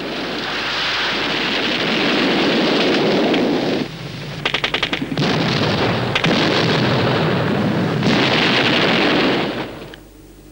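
Battlefield explosions from artillery shells landing, heard as a continuous loud roar. A rapid burst of gunfire comes about four and a half seconds in. The noise stops shortly before the end.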